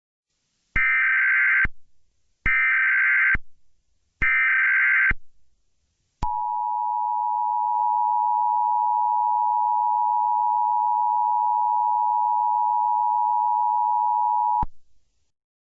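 Emergency Alert System tones: three short bursts of SAME header data, each just under a second, followed by the steady two-tone EAS attention signal, held for about eight seconds before cutting off sharply. They mark the start of a new alert message.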